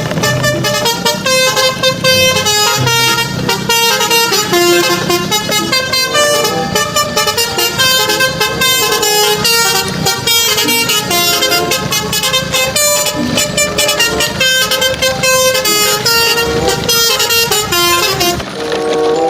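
Upbeat background music with a quick steady beat and bright notes changing several times a second.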